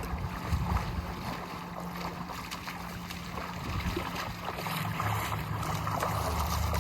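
Wind rumbling on the microphone over the steady noise of open water, the rumble growing stronger about two-thirds of the way through.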